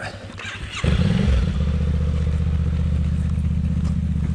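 KTM motorcycle being bump-started in second gear on gravel: the engine catches about a second in, revs briefly and then runs steadily. The push start gets the bike going despite a flat battery.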